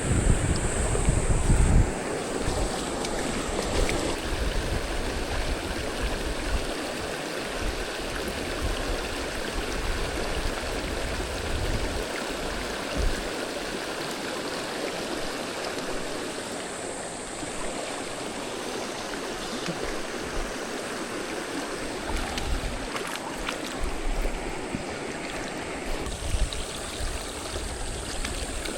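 River stream water rushing steadily, with wind buffeting the microphone for the first couple of seconds.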